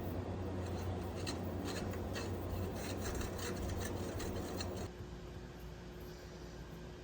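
A small motor humming with scratchy scraping against it; the hum cuts off about five seconds in.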